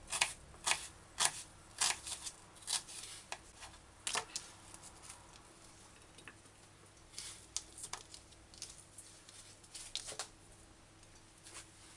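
Kitchen knife slicing garlic cloves on a plastic cutting board: sharp taps of the blade on the board about once every half-second to second for the first few seconds, then a few scattered fainter clicks as the cut pieces are pushed about by hand.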